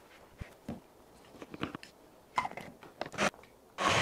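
Hard plastic clicks and knocks as the BlendJet portable blender's lid is screwed onto the jar, then near the end its motor starts with a sudden steady whir, blending frozen blueberries and protein powder.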